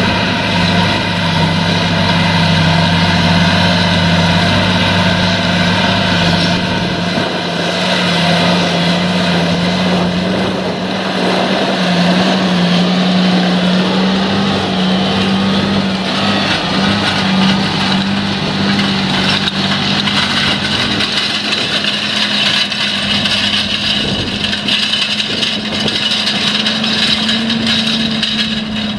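John Deere 8345R tractor's six-cylinder diesel engine running steadily under load while it pulls a disc cultivator through stubble, its note creeping slightly higher in the last stretch.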